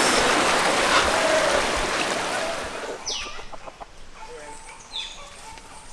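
Rushing water of a stream, which cuts off about three seconds in to a quieter spot where a chicken clucks and gives two short squawks that fall in pitch.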